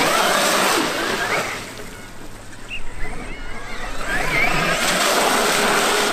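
Traxxas X-Maxx electric RC monster truck running through water: a brushless motor whine that rises and falls in pitch over splashing, in two bursts with a lull about halfway through.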